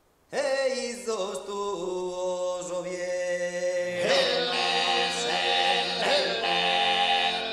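Sardinian cantu a tenore: a quartet of male voices singing a cappella in the 'voche notte antica' mode, the lower voices holding a steady low drone under the lead. The singing comes in sharply a moment in, and from about four seconds in the chord turns brighter and fuller.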